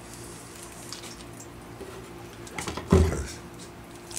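Handling noise from a clear PVC tube and its cap being worked by hand, with one dull thump about three seconds in, over a low steady hum.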